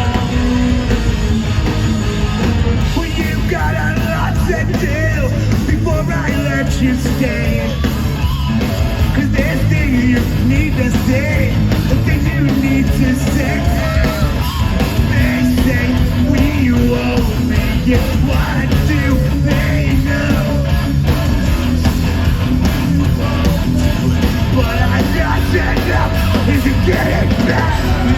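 A rock band playing live at full volume, with a singer singing and shouting over it.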